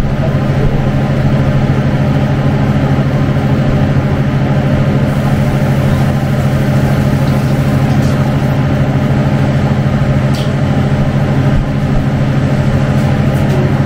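Steady low mechanical hum of a kitchen exhaust fan running without change, with a couple of faint clicks.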